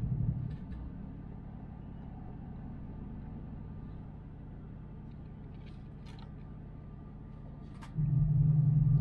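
Steady low rumble and hum of a Tohoku Shinkansen Yamabiko bullet train cabin at speed, with a few light clicks from handling the lunch box and plastic fork. Near the end a much louder low rumble sets in.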